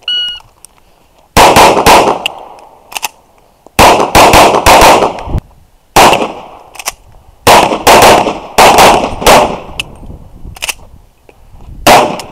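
A shot-timer beep, then a red-dot-sighted competition pistol fired in several fast strings of shots, with short pauses between strings as the shooter moves between positions.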